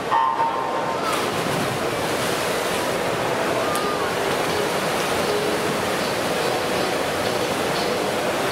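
Echoing pool-hall noise of spectators cheering and swimmers splashing in a freestyle race, a steady loud wash with no clear words.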